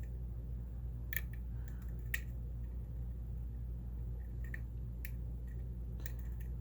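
Lock pick and tension wrench working the pins of a challenge lock's cylinder: a few faint, scattered metallic clicks as pins are lifted and set, over a steady low hum.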